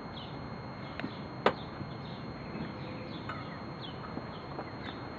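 Small birds chirping over a steady background hiss, with short high chirps scattered throughout and a sharp click about one and a half seconds in.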